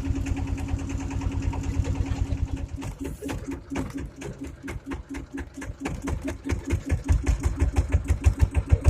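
Motorboat engine running at a steady note, which about three seconds in breaks up into uneven firing; from about six and a half seconds in it settles into strong, regular low chugging pulses that grow louder.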